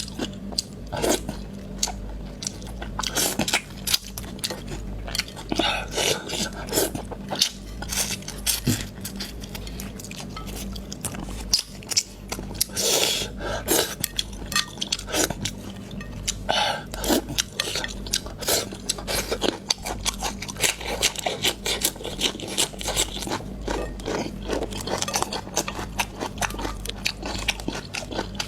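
Close-miked eating sounds: a person chewing fish maw, with frequent irregular clicks of utensils against a bowl.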